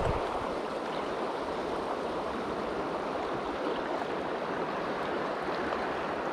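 Shallow river water running over a rocky riffle: a steady, even rush.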